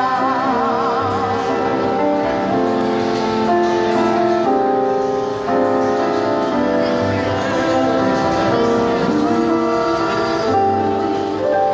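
Vocal ensemble singing held chords in harmony, with a wavering vibrato in one voice near the start, over a Nord stage keyboard, amplified through stage speakers.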